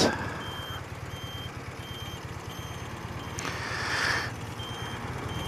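A short, high electronic beep repeating evenly about twice a second, over the steady low running of an old BMW motorcycle's engine. A brief rush of noise comes about three and a half seconds in.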